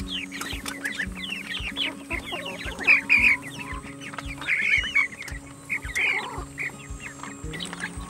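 A flock of young broiler chickens peeping, a dense run of short calls that fall in pitch, over background music with a steady beat.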